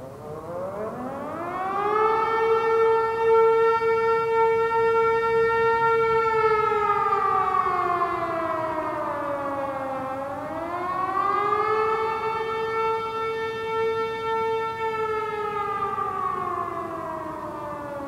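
A man imitating an air-raid siren with his voice through cupped hands: two wails, each rising over a couple of seconds, holding a steady pitch, then falling away, the second rising again about ten seconds in.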